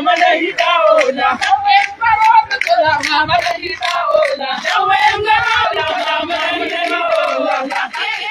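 A marching crowd of young men and women chanting and singing together in unison, with shouts. Some low thumps come through between about two and five seconds in.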